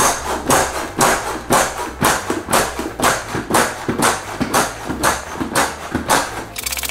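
FEELLE air mattress being inflated by treading on its built-in foot pump: a regular series of short rushing pump strokes with fabric rustle, about two a second.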